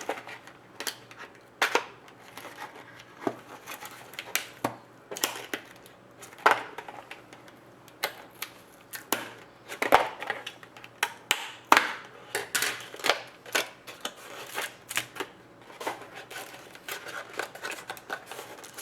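Boxes and sealed packs of trading cards being opened by hand: irregular crinkling of wrappers and cardboard, with sharp clicks and taps as the cards are handled.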